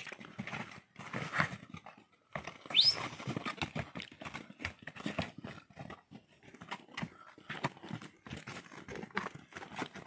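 Pack horses' hooves knocking irregularly on the stones of a rocky trail as they step along. A short rising whistle sounds about three seconds in.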